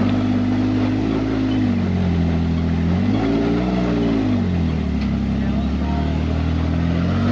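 A Jeep's engine revving in repeated swells, rising and falling in pitch about three times, as the vehicle struggles for traction on a sandy climb.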